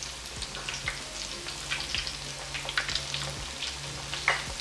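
Breaded chicken drumsticks deep-frying in hot oil in a cast-iron skillet: a steady sizzle with scattered crackling pops, one louder crackle near the end.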